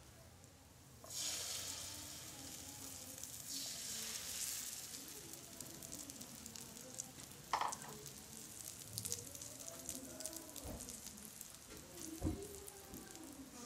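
Beaten egg with chopped tomato and onion sizzling in hot oil in a non-stick frying pan. The sizzle starts suddenly about a second in as the egg is poured, surges again about four seconds in, then settles into a steady crackle as the egg sets in the bread. A few soft knocks come in the second half.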